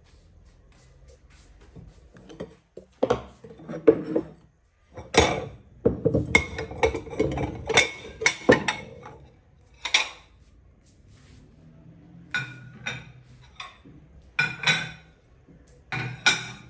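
Ceramic dinner plates being set down on a table onto charger plates, giving a series of sharp clinks and clatters in irregular clusters, busiest in the middle.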